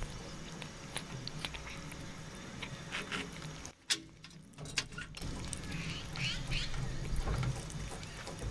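A cat eating chunks of fish off a plate right at the microphone: wet chewing and lip-smacking, heard as many short clicks with a brief lull near the middle.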